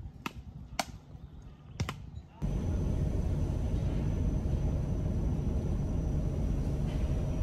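A few sharp clicks. Then, about two and a half seconds in, a sudden switch to the steady rumble of a vehicle in motion, with a faint high whine held on one pitch.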